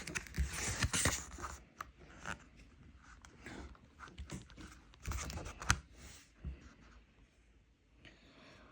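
Soft paper rustling and a few short handling clicks, from a picture book's page being turned.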